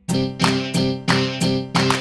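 Background music: a new track starts right at the beginning, with plucked chords struck in a steady rhythm about three times a second.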